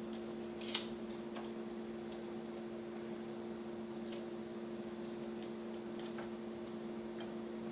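Herb leaves and stems being handled at a kitchen counter: light, irregular clicks and crinkles, a few a second, over a steady low electrical hum.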